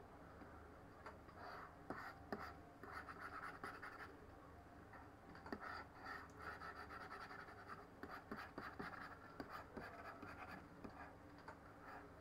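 Faint scratching of a stylus drawn across a Bamboo pen tablet in short, repeated strokes, with a few light clicks.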